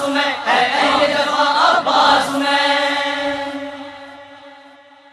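Urdu nauha, a Shia lament, chanted to its closing refrain, with low thumps in time about every second. A final long held note then fades out over the last two seconds.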